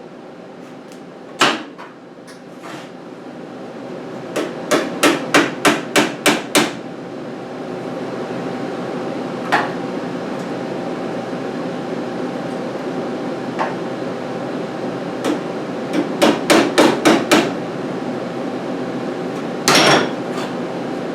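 Hammer blows on the sheet-metal patch panel of a 1963 Chevy C10 cab roof, in two quick runs of about seven blows each, with single blows between them and a slightly longer burst near the end. A steady hum runs underneath.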